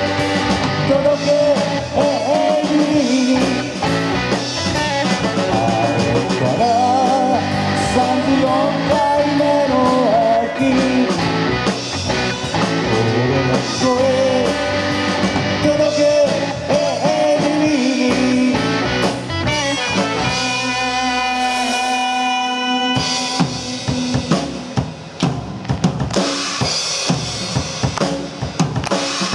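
Live rock band with saxophone, electric guitar, bass and drum kit playing an instrumental break, a wavering lead melody over the band. About twenty seconds in the band holds one chord, and the drum kit carries on alone with bass drum and snare hits.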